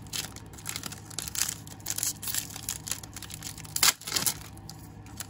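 Plastic wrapper of a baseball trading-card pack being torn open and crinkled by hand: a run of short crackling rustles, the loudest about four seconds in.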